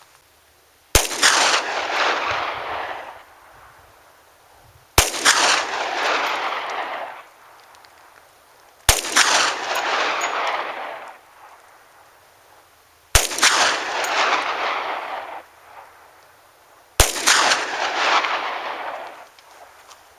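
Five single shots from a Glock 20 pistol in 10mm firing 155-grain +P jacketed hollow points, one about every four seconds. Each shot is followed by an echo that dies away over about two seconds.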